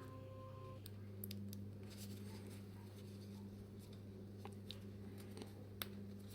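Faint, scattered small clicks of metal tweezers and watch parts being handled on the bench, over a steady low hum.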